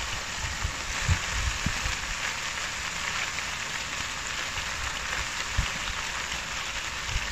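Steady sizzling hiss from meat frying in a cast-iron Dutch oven set directly on glowing charcoal briquettes, with a few soft low thumps.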